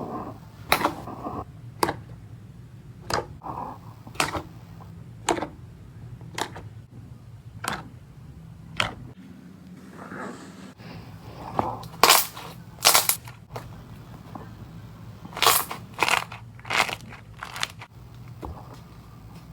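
Slime being pressed and squished, giving a string of sharp, irregularly spaced pops and clicks, with louder ones clustering in the second half, over a faint low hum.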